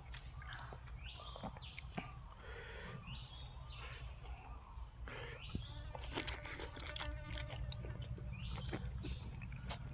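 Close-up chewing and crunching of food, repeated short crackly bites over a low steady hum.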